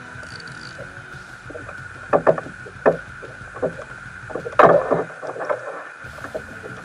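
Irregular knocks and bumps on a plastic fishing kayak as an angler handles his rod and reel, over a steady hum. The knocks are grouped in the middle, and the loudest comes a little past halfway.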